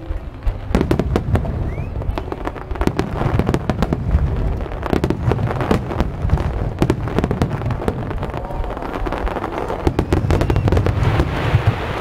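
Aerial fireworks bursting in a rapid barrage, a dense run of booms and sharp cracks one on top of another, starting about a second in.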